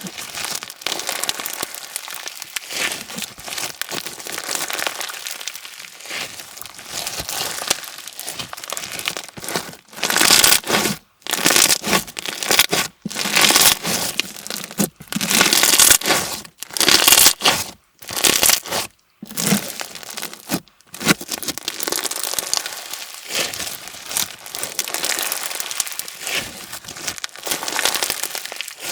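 Clear slime packed with slushie beads being squeezed and pressed by hand, giving a dense crunchy crackling. It is louder from about ten to twenty-one seconds in, broken by several short silences.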